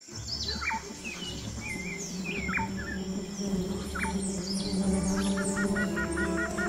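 Birds chirping, with a few quick falling whistles over a steady low hum of honeybees buzzing. Near the end one bird repeats a short call about eight times in quick succession.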